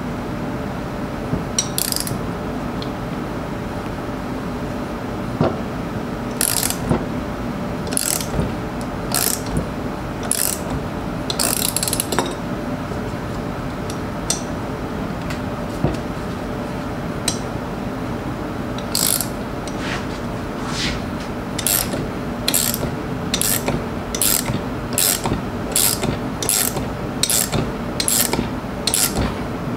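Ratchet wrench ratcheting in short back-and-forth strokes as it turns the bolt of a homemade bolt-and-washer puller, slowly drawing the oil pump out of a Laycock D-type overdrive. The strokes are scattered at first, then settle into a steady run of about two a second in the second half, over a steady low hum.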